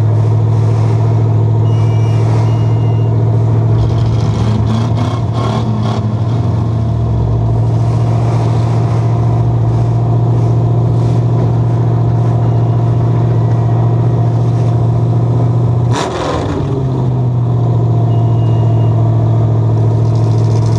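Demolition derby Chevy truck's LS1 V8 idling loud and steady inside the stripped cab. A few clicks come about a quarter of the way in, and a single sharp bang about three-quarters through.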